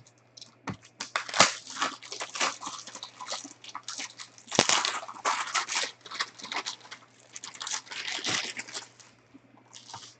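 Card packaging being torn open and crinkled by hand: a run of quick rustling, tearing and crinkling strokes that ease off near the end.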